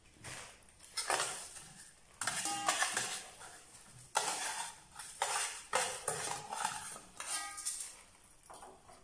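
Plastic bag of dry beaten rice flakes (avil) crinkling as the flakes are poured into glass dessert cups, in several separate bursts with light glass clinks.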